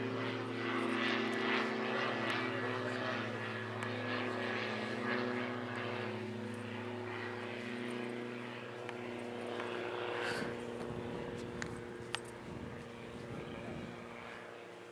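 Steady drone of a light propeller aircraft's engine, fading away over the last few seconds. Two short sharp clicks come near the end.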